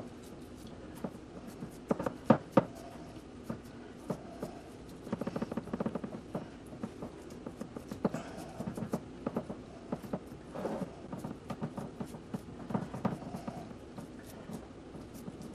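Hands kneading and pressing a raw ground-meat meatloaf mixture into a glass loaf pan: irregular soft squishes and small taps, loudest about two seconds in.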